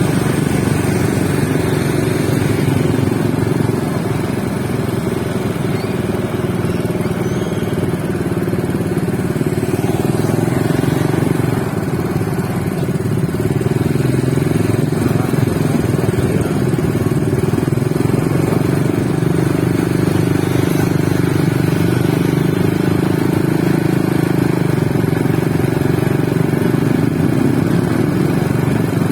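Steady, continuous running of motorcycle traffic, a dense low engine hum with no clear pauses.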